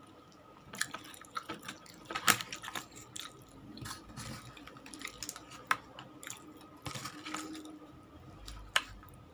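Close-up sounds of a person chewing food: irregular wet smacks and clicks of the mouth, the sharpest about two, six and nine seconds in, with a faint steady hum underneath.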